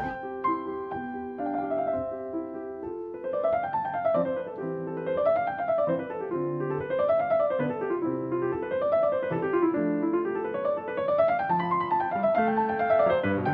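Background piano music: held chords at first, then from about three seconds in, runs of notes rising and falling in repeated waves.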